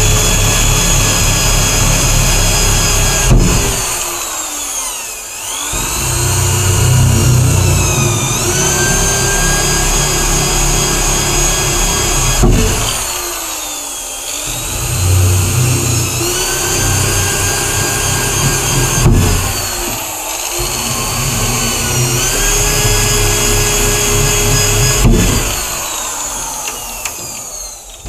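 Handheld electric drill boring holes through moulded water-tank panels. Its motor whines steadily, the pitch sagging each time the bit bites and picking back up, over about five holes.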